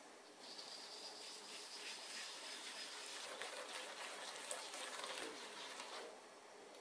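Wire whisk beating egg yolks and sugar in a glass bowl: faint, quick ticking and swishing of the wires against the glass. It stops about six seconds in.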